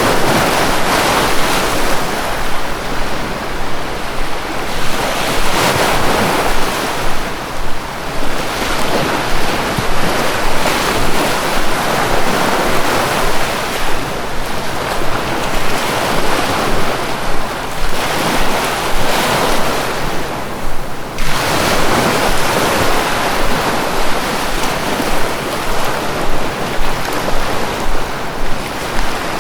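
Sea waves breaking and washing onto a shore: a continuous rush of surf that swells and falls back every few seconds.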